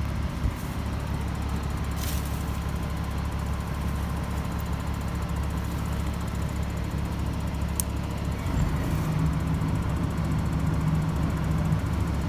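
Sides VMA 112 6x6 airport crash tender's engine running steadily, with a couple of short clicks as the control panel's rotary switches are turned. About eight and a half seconds in, the running grows louder with an added steady hum.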